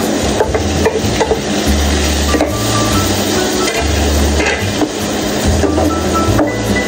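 Chopped tomatoes, onions and peppers frying in a nonstick pan, sizzling steadily while a wooden spatula stirs them, scraping and tapping against the pan many times.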